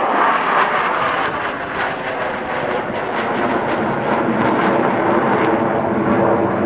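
A formation of six Navy F/A-18 Hornet jets, each with twin turbofan engines, flying away overhead, heard as steady, loud jet noise.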